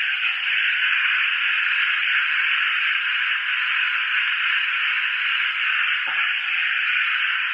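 Long-handled drywall sander grinding a hard, concrete-like popcorn ceiling with a coarse abrasive disc while its dust extractor runs: a loud, steady hiss, with a brief knock about six seconds in.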